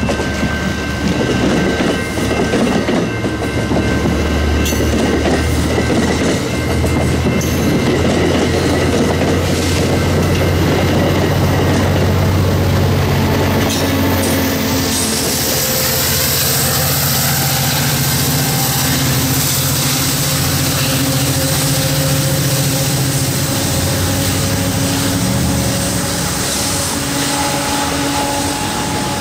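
AMT commuter train of Bombardier bilevel coaches passing close by, wheels clattering over the rails. About halfway through, the diesel locomotive pushing at the rear goes by with a steady engine drone, which fades as the train clears.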